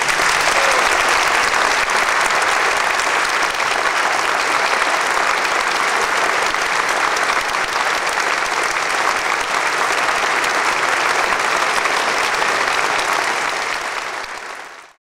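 Audience applause: dense, steady clapping from a large crowd that fades out near the end.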